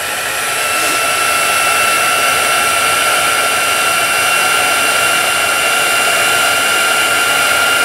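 Embossing heat tool running steadily: a fan blowing with a steady high motor whine, heating embossing powder on a stamped image to melt it.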